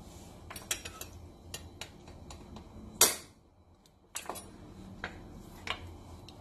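Back of a cleaver knocking crab claws on a wooden chopping board to crack the shell before steaming, with small clicks and taps of handling. One much louder knock comes about three seconds in.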